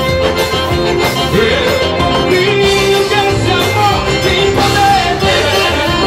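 Gospel song performed live: a man singing into a microphone over a full backing band, holding long notes.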